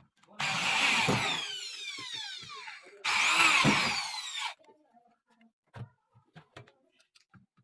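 Power drill run in two bursts of about two and a half seconds and one and a half seconds. The motor whine falls in pitch as it spins down after each trigger pull, and the second burst rises briefly before falling. Faint small clicks and knocks follow.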